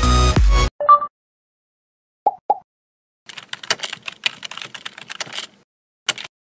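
Computer keyboard typing sound effect: a quick run of key clicks for about two seconds, then one last single click near the end. Before it, electronic dance music cuts off just under a second in, and a few short beeps follow.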